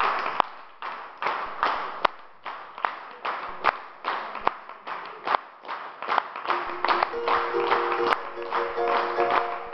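Audience clapping in time, about two and a half claps a second. Held instrument notes join the clapping about two-thirds of the way through.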